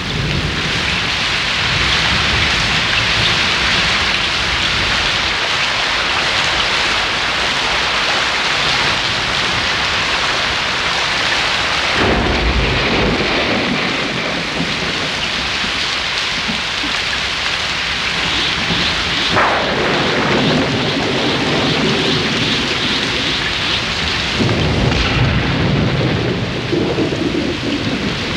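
Heavy rain starts suddenly and pours steadily in a thunderstorm. Deep rumbles of thunder swell about twelve seconds in, again near twenty seconds, and once more near twenty-five seconds.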